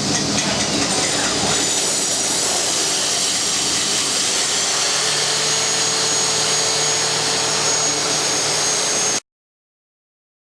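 Power drill running steadily while drilling into reinforced concrete for seismic anchors or a core hole, a loud whine and hiss that cuts off suddenly about nine seconds in.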